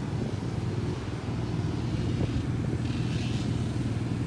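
A steady low engine hum runs throughout. Just past the middle there is a brief soft rubbing as a hand smooths a graphic decal onto the dirt bike's plastic shroud.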